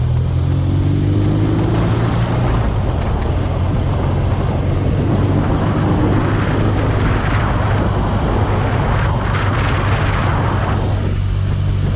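BMW R nineT Urban G/S's air/oil-cooled boxer twin running under way, its revs climbing over the first couple of seconds, with heavy wind noise buffeting the microphone.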